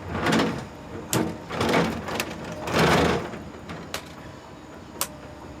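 Plastic parts of a Bruder CAT wheel excavator toy being handled and moved: several scraping, sliding sounds in the first few seconds, and a few sharp plastic clicks spread through.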